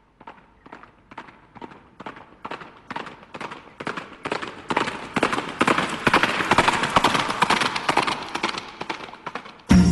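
Bicycle rattling and clattering over a bumpy dirt track: rapid knocks, about four a second at first, growing louder and denser. Music cuts in right at the end.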